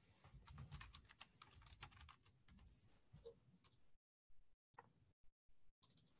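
Faint typing on a computer keyboard: a quick run of keystrokes for about two seconds, then a few more and some scattered single clicks near the end.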